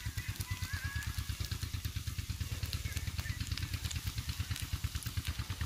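An engine running steadily nearby, a low even thudding of about nine beats a second, over the faint crackling sizzle of mince frying on the griddle.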